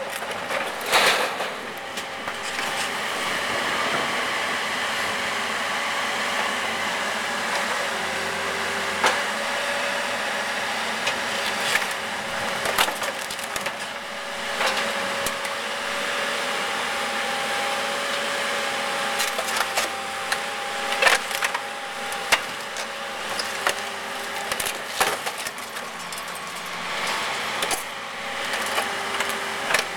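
Excavator running steadily while it breaks up an old Mercedes 300D sedan, with sharp cracks and crunches of metal and glass giving way, about half a dozen spread through.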